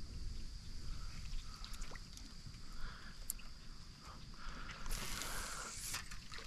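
Water lapping and swishing against a kayak hull, over a low rumble of wind on the microphone and a steady high tone. About five seconds in there is a brief hiss lasting about a second.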